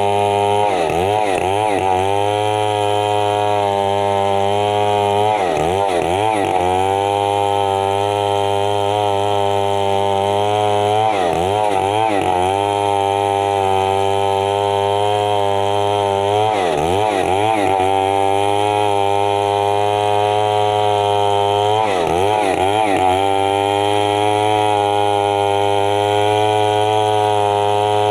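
Stihl MS 070 two-stroke chainsaw running at high revs while cutting mahogany. Its engine note dips and recovers five times, about every five to six seconds.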